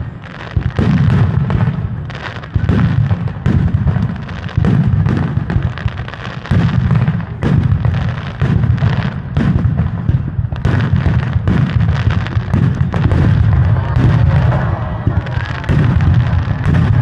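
Aerial firework shells bursting in quick succession: a continuous run of deep booms and sharp reports, one after another.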